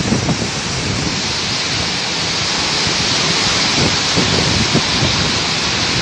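Heavy rain pouring down in a storm driven by strong, gusting wind, a dense steady hiss with irregular low rumbling buffets of wind on the microphone.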